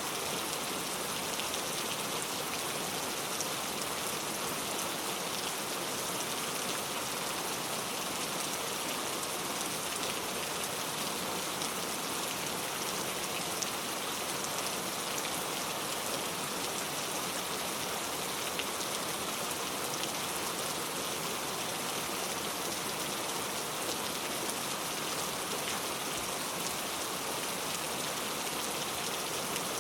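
Heavy rain falling steadily, tapping on a road surface covered with leaves.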